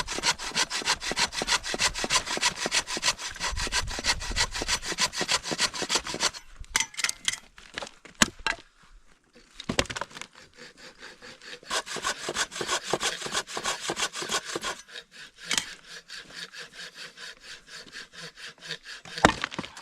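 Hand saw cutting driftwood with steady back-and-forth strokes, stopping briefly a couple of times midway and then carrying on a little softer.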